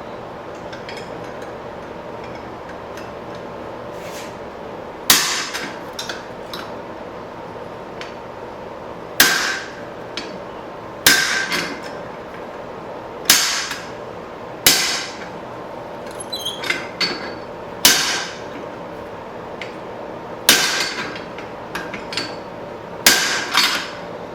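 Hand hammer striking the top die of a guillotine fullering tool on hot leaf-spring steel: about nine heavy blows a few seconds apart, starting about five seconds in, each followed by a few quick lighter rebound taps, over a steady background hum.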